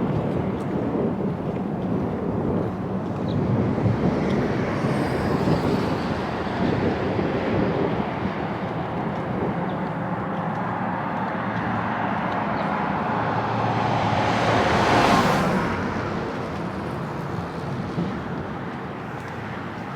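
Steady engine and road noise heard from inside a moving tour bus, with a brief louder, hissing swell about fifteen seconds in.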